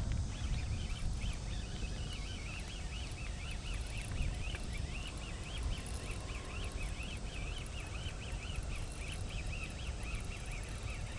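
Small birds chirping continuously in quick, rapid notes, over a steady low outdoor rumble.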